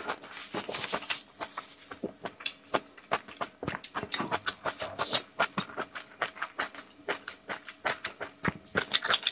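Close-up mouth sounds of eating raw scallop: wet chewing, slurping and smacking, a quick irregular run of clicks throughout.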